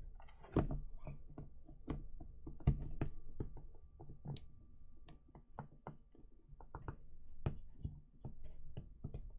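Irregular clicks and knocks of a Kotobukiya Obelisk the Tormentor statue being handled and pressed onto its display base, over a low rumble of handling, with one louder knock a little under three seconds in.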